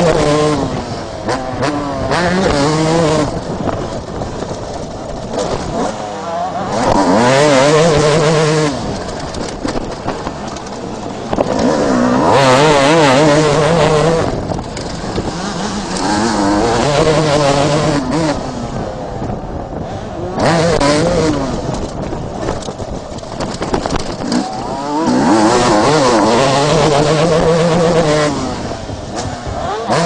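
Suzuki RM250 two-stroke motocross bike heard from on board, its single-cylinder engine pulling hard in repeated bursts of throttle with the revs climbing and dropping, then easing off to a lower, wavering note between bursts.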